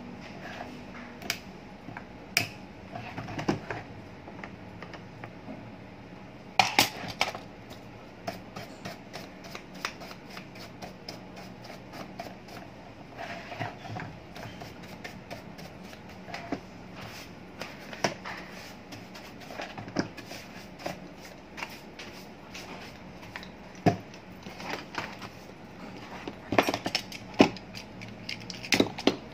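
Irregular clicks and knocks of tools and hard plastic as a Hanabishi desk fan's housing is worked on with a screwdriver and then a utility knife, with louder bursts of clatter about seven seconds in and near the end.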